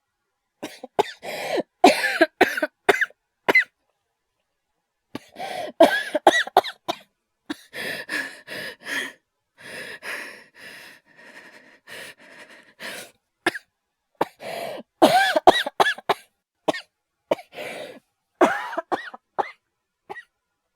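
A voice actor's acted coughing fits: quick runs of several harsh coughs, with wheezing, laboured breaths between them in the manner of an asthma attack. The wheezing breaths fill the middle, and a hard run of coughs comes again near the end.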